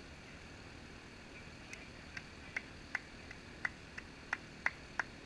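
Hand clapping: sharp single claps begin about a second and a half in, slowly at first, then coming faster near the end, over a faint steady outdoor background.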